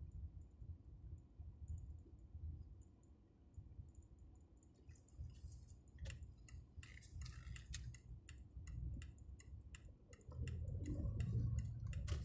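A car driving slowly over block paving, heard from inside the cabin: a low rumble with irregular light clicks and rattles, the rumble growing louder near the end.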